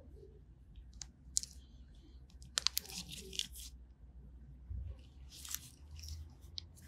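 Faint scratchy rubbing and small clicks from a cotton-wrapped wooden cuticle stick scraping polish off the skin around the toenails, with gloved hands handling the foot, in uneven short bursts.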